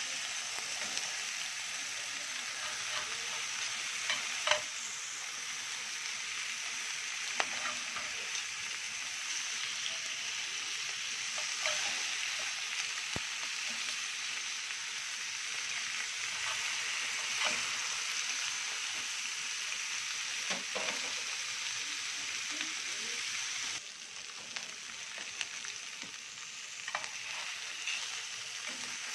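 Bacon-wrapped beef tenderloin steaks sizzling steadily in a skillet, with occasional clinks and scrapes of a metal spatula and tongs as the steaks are turned. The sizzle turns quieter about three-quarters of the way through.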